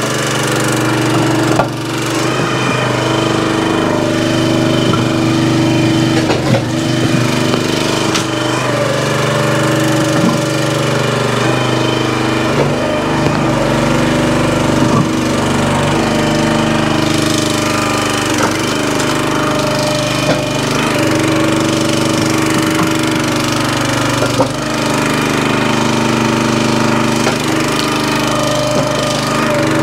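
Small gasoline engine of a hydraulic log splitter running steadily. Its pitch dips several times as the ram is loaded, and there are scattered sharp knocks and cracks from wood being split and handled.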